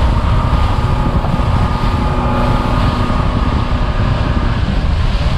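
Center-console boat running at speed over open water: the engine runs steadily with a faint steady whine, under the rush of spray off the hull and wind buffeting the microphone.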